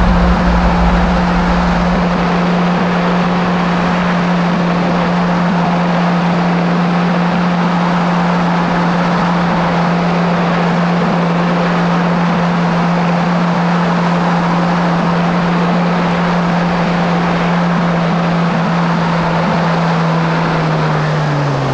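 Kawasaki SX-R 1500 stand-up jet ski's four-stroke engine running at a steady cruising speed over a constant rush of noise. Its note falls in pitch near the end as the revs drop.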